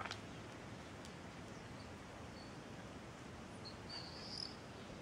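Faint outdoor ambience, a steady hiss, with a short click at the very start and a small bird's brief high chirp about four seconds in.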